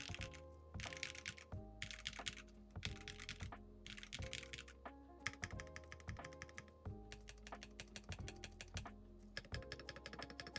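Typing on a mechanical keyboard fitted with Mingding linear switches, in quick bursts of keystrokes with short pauses, with a longer, faster run of keystrokes in the middle. Background music plays underneath.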